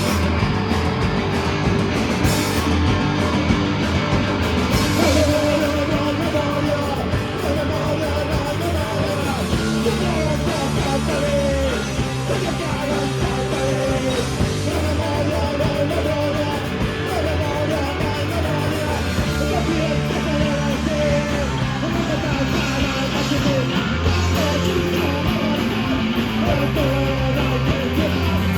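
Live rock band playing: distorted guitars, bass and drums with a vocal line, the sound of a club gig.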